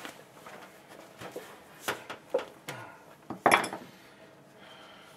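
Handling noise with a few sharp clicks and clinks of small hard parts, while a plastic zip tie is fitted over a trimmer fuel line and filter; the loudest click comes about three and a half seconds in.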